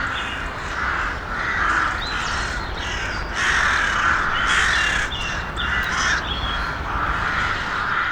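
Crows cawing over and over, several harsh calls overlapping in a steady run.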